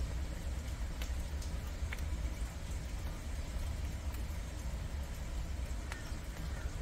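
Prairie dogs gnawing sugarcane, with a few faint crunches about 1, 2 and 6 seconds in, under a louder steady low rumble.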